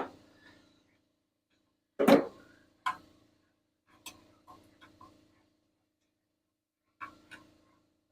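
Scattered sharp knocks and clinks of metal parts and tools being handled during tractor maintenance, loudest about two seconds in, with a quick run of lighter taps around four to five seconds and two more near the end.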